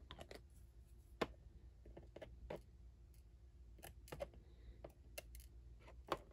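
Scattered faint clicks and taps of small hobby tools and plastic parts being handled on a work table, with two sharper clicks, one about a second in and one near the end.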